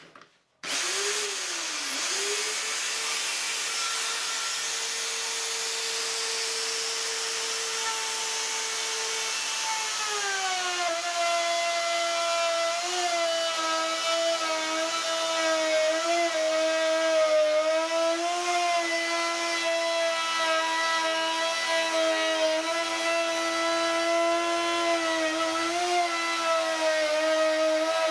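Makita 0910 hand router starting up and rising to a steady high whine. About ten seconds in its pitch drops and wavers as the bit cuts a curved groove along a wooden board under load.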